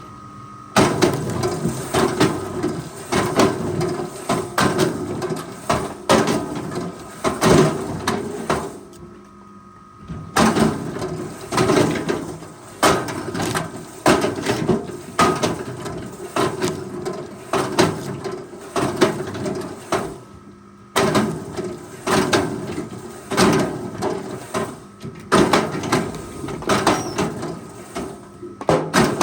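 Forest machinery running with a steady drone, over which wood knocks and clunks again and again. The sound breaks off and starts again abruptly a few times.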